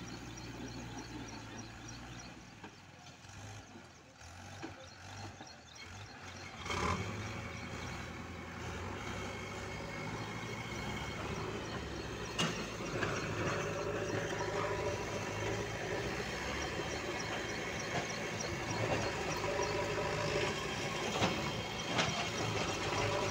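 Farm tractor's diesel engine running while it pulls a trolley loaded with soil. It grows suddenly louder about seven seconds in and keeps building toward the end, with a few sharp knocks.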